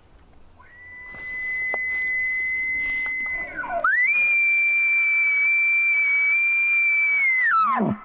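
Imitation bull elk bugle blown through a bugle tube: a high whistling note held for a few seconds, then a louder, slightly higher note held from about halfway, ending in a steep drop to a low growl near the end.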